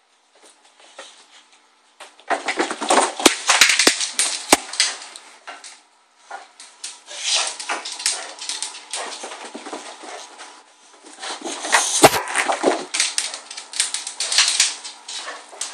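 A boxer dog barking in sharp, loud bursts, over close rustling of cloth against the microphone.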